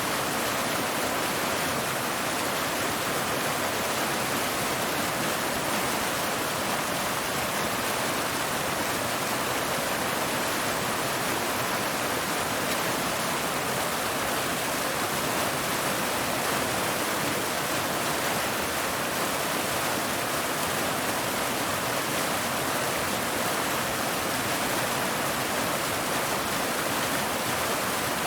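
Waterfall: water cascading over rocks in a steady, unbroken rush.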